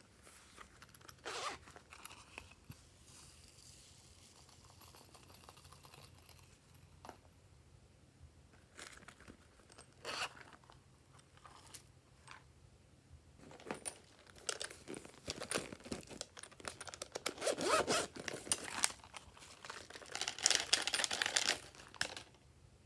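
Small plastic containers being handled and decorations poured into a glass bowl: a few sharp clicks in the first half, then a long stretch of dense crackling and rustling in the second half.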